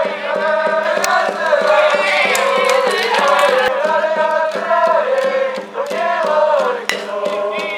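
School cheering section in the stands singing and chanting a cheer song in unison.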